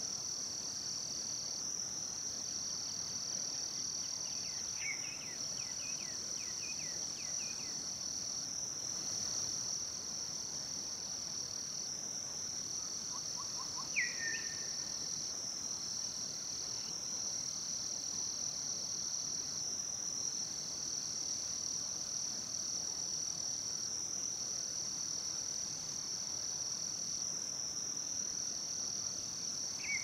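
Steady, high-pitched trilling of insects, with a second, lower trill that breaks off briefly every second or two. A few bird calls cut through: a short run of chirps, a sharp falling call about halfway, and another near the end.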